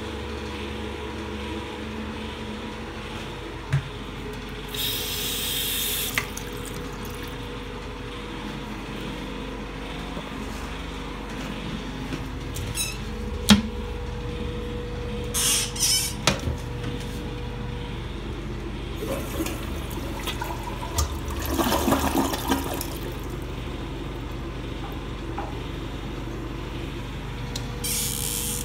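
Glacier Bay dual-flush toilet flushing and running water as its tank refills, over a steady hum, with a few sharp clicks and knocks of fixtures.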